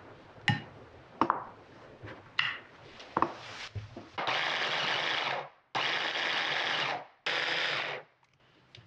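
A few light knocks as butter cubes drop into the plastic bowl, then a KitchenAid mini food chopper run in three short pulses of about a second each, a steady motor whir that starts and stops sharply, combining cold butter with the flour and nut dough.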